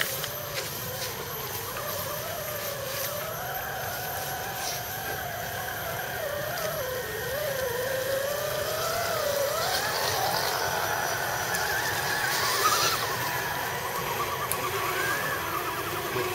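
Electric drive motors and gearboxes of scale RC crawler trucks whining as they are throttled through mud, the pitch wandering up and down with the throttle. A short, louder noisy burst comes about twelve seconds in.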